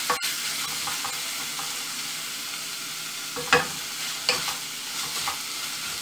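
Tuna filling sizzling as it fries in a metal pot, stirred with a wooden spatula that scrapes through it and knocks sharply against the pot a few times. The loudest knock comes about three and a half seconds in.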